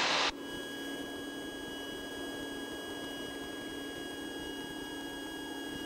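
Steady electrical whine of several fixed tones over faint hiss in the Cessna 150's intercom and headset audio. The broad cabin noise cuts off abruptly just after the start, leaving only the whine, and one tone steps down in pitch near the end.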